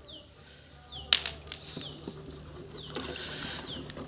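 A bird repeating a short, high whistle that falls in pitch, about once a second. There is a sharp click about a second in and a faint hiss near the end.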